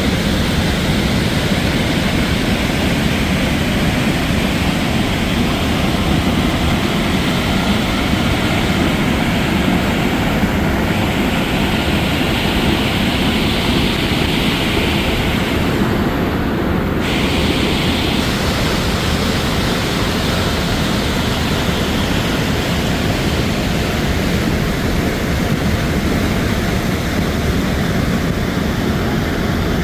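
Sheep River Falls: the steady, loud rush of a waterfall, an even roar of falling water with no let-up.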